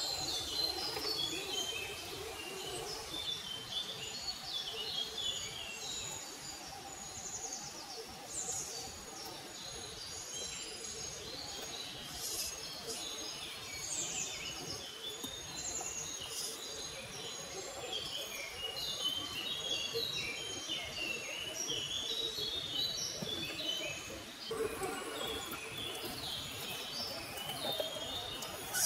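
Songbirds chirping and singing, many short calls and trills overlapping throughout, over a steady background hiss.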